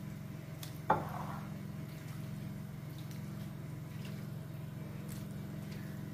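Raw chicken pieces dropped into a bowl of yogurt marinade: one wet plop about a second in, then faint soft clicks, over a steady low hum.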